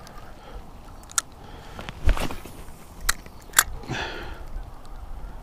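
A few sharp clicks and crunching rustles close to the microphone as a spinning rod and reel are handled, with a brief swish a little after two seconds in.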